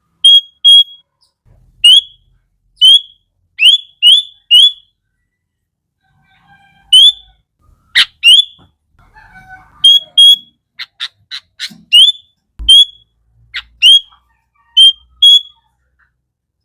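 Sooty-headed bulbul giving loud, short, sharply upslurred whistled call notes, repeated every half second to a second and sometimes in quick pairs. Near the middle comes a fast run of about five clipped notes. One sharp click is heard about eight seconds in.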